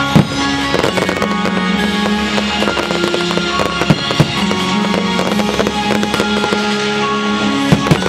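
Fireworks display: shells bursting with sharp bangs and a scattering of smaller cracks over steady music. The loudest bangs come just after the start, twice in quick succession about four seconds in, and once near the end.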